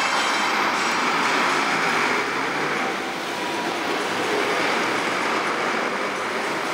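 Steady city street noise of traffic, an even rushing hiss with no distinct events, dipping slightly about three seconds in.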